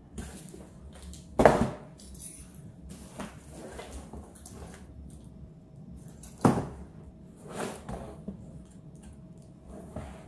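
A flat cardboard box being handled and turned over, with two sharp knocks about a second and a half in and again near the middle, and softer bumps and rustles in between.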